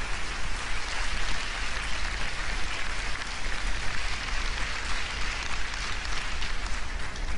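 Large theatre audience applauding: steady, dense clapping from many hands.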